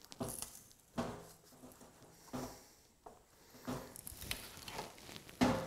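Wire cutters biting into and breaking pieces off the cut end of a Minn Kota trolling motor's composite shaft: a series of irregular crunching snaps about a second apart, the loudest near the end.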